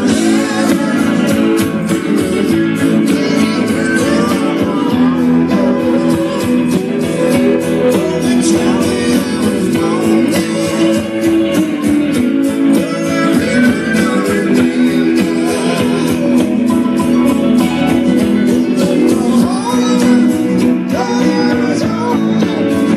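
Live rock band playing: a male lead vocal over electric guitars, bass guitar and a drum kit keeping a steady beat.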